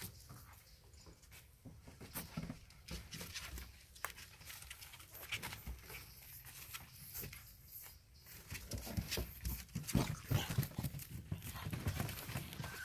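Shar-pei puppies scuffling and play-wrestling, their paws scrabbling and tapping on wooden boards in many small clicks and knocks. The scuffling grows busier and louder for the last few seconds.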